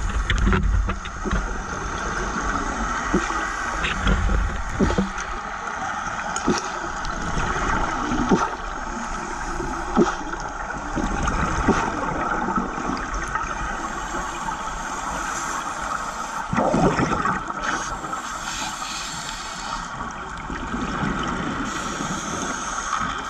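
Underwater sound through a camera housing: a steady hiss with scattered clicks, and bubbling from scuba divers' exhaled air. The longest gush of bubbles comes about two-thirds of the way through.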